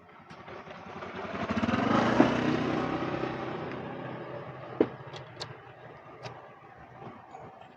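A motor vehicle passing by: its engine grows louder, is loudest about two seconds in, then fades away over several seconds. A few short sharp clicks and a knock follow after it has passed.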